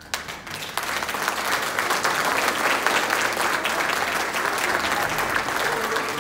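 Audience applauding, starting at once and swelling within the first second, then holding steady.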